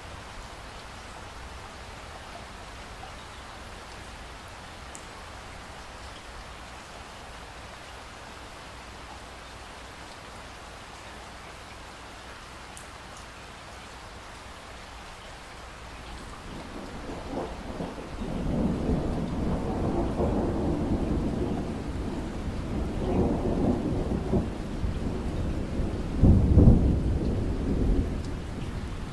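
Steady rain falling. About halfway through, a long roll of thunder builds in and rumbles in several waves, with its loudest boom near the end before it starts to fade.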